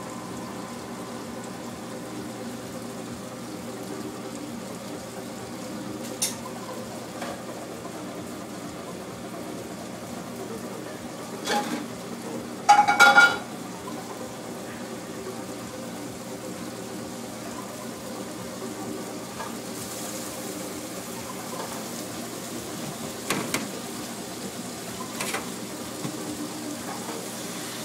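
Restaurant kitchen background: a steady hum of equipment and frying. Across it come a few sharp knocks and clinks of metal kitchenware on a steel counter, the loudest a ringing clatter about 13 seconds in.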